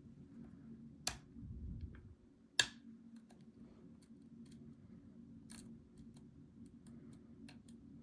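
Metal lock picks and tension tools working the pins of an ASSA 700 lock during picking: two sharp clicks a second and a half apart with handling noise between them, then a run of light ticks.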